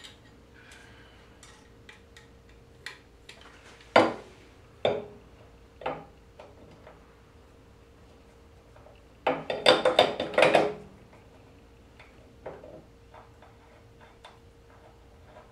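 Aluminium parts clinking and knocking against the metal carriage plate of a DIY CNC router as they are fitted by hand: single sharp knocks about four, five and six seconds in, then a quick flurry of clanks around ten seconds in, with small ticks between, over a faint steady hum.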